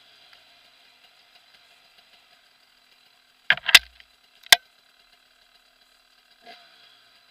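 Sharp knocks of a dirt bike and its helmet-mounted camera jolting over a rough trail, heard through the camera housing: a quick cluster of knocks about halfway through, one loud knock just after, and a weaker one near the end, over a faint steady hum.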